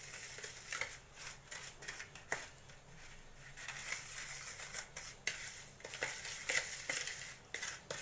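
Steel spoon stirring and scraping against a glass bowl, mixing powdered sugar into ghee, with scattered light clicks of the spoon on the glass.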